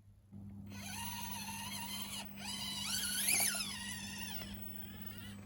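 Small electric motor and gears of an Axial SCX24 micro RC crawler whining as it is driven. The pitch wavers, climbs to a peak a bit over three seconds in, then falls and fades near the end.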